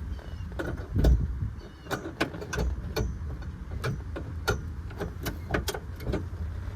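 A run of irregular sharp clicks and knocks, with a heavier low thud about a second in: the new EMPI trigger shifter in a '73 VW Beetle being worked through its gears.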